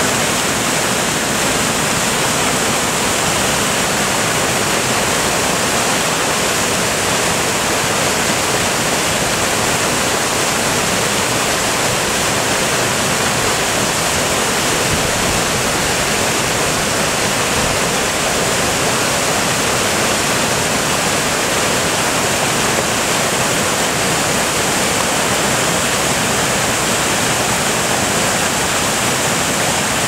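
Water pouring over an ice-coated waterworks overflow weir and churning into the basin below: a steady, loud rushing.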